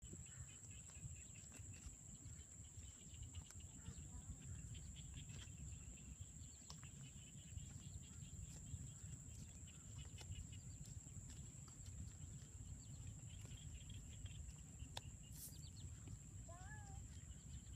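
Faint outdoor ambience: a low wind-like rumble under a steady high-pitched whine, with scattered faint chirps and clicks. A few short wavering calls come near the end.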